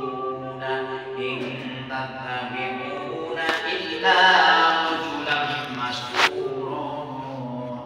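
A man chanting Qur'an recitation in Arabic into a microphone, in long drawn-out melodic phrases. Two sharp clicks cut through, about three and a half and six seconds in.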